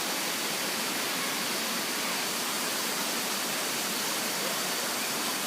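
Waterfall rushing: a steady, even hiss of falling water, with a faint steady high-pitched tone above it.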